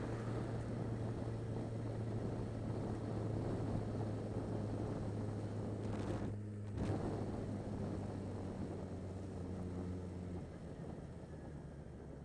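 Yamaha XJ6 Diversion's 600cc inline-four running steadily under way, with wind and wet-road tyre noise. About six seconds in, the engine note breaks off for half a second. From about ten seconds in, the note drops and the sound gets quieter as the bike slows.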